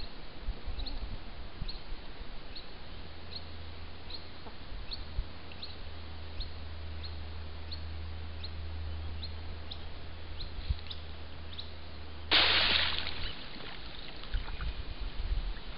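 Bush ambience picked up by a trail camera: a faint high chirp repeating a little more than once a second, over a low steady hum. About twelve seconds in comes a short, loud rush of noise, the loudest thing heard.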